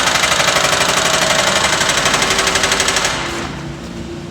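Power hammer running: rapid, loud, even hammering at about ten blows a second that stops about three seconds in, leaving a lower steady hum.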